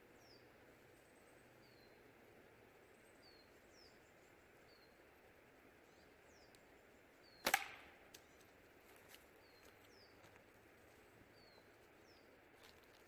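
One sharp crack about seven and a half seconds in: a 9.5 mm steel ball from a single-band slingshot striking a hardened steel and brass padlock, with a brief ring, the hit that springs the lock open. A couple of faint knocks follow, and a small bird repeats a short falling chirp throughout.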